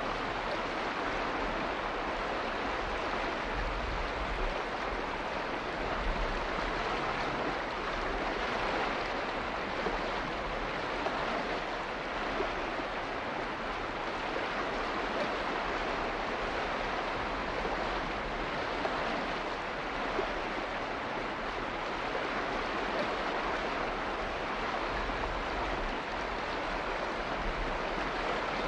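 Steady rushing water, an even, unbroken hiss with no distinct drops, splashes or pauses.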